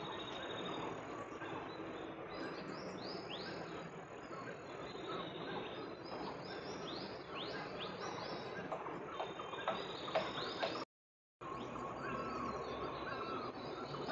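Wild birds chirping: a string of short, high, arched calls repeating every second or so over a steady outdoor hiss. The sound cuts out for about half a second near eleven seconds in.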